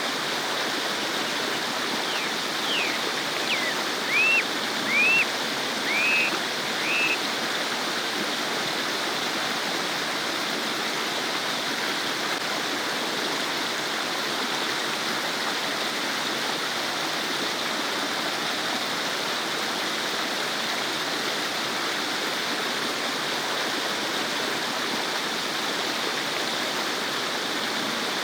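Small stream babbling steadily. Between about two and seven seconds in, a run of five or six short, high, arched chirps rises above the water, then the water carries on alone.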